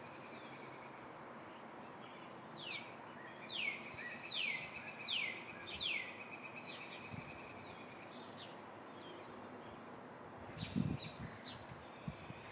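Songbirds calling: one sings a run of about five clear whistles, each sliding sharply downward, over a thin steady trill, followed by scattered short high chips. A couple of low bumps come near the end.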